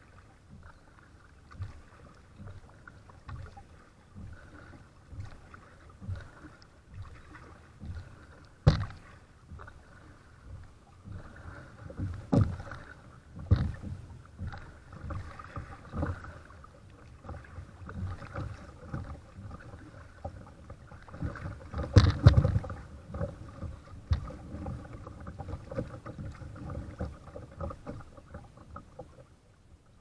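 Kayak paddling on a river: paddle blades dipping and pulling through the water in a loose rhythm, with water splashing and lapping along the hull. A few sharper knocks stand out, one just before the middle and a louder cluster about two-thirds of the way through.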